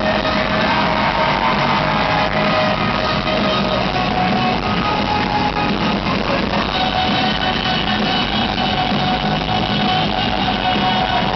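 Live rock band playing loud, with electric guitar holding long notes over the full band.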